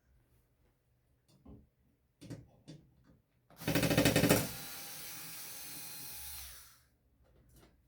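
A few light knocks, then a small electric power tool runs for about three seconds. It starts with about a second of loud rattling, settles into a steadier, quieter run, and stops near the end.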